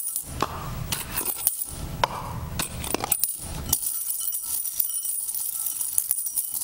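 Metal dog tags clinking against each other and a glass bowl as they are tipped in from a cup and mixed by hand. A flurry of sharp clinks over the first few seconds gives way to quieter, sparser jingling.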